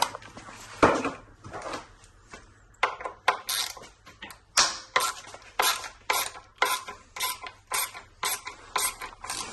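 Hand hex driver turning out a suspension linkage bolt that has just been heated to loosen its threadlocker, making sharp metallic clicks at about two a second.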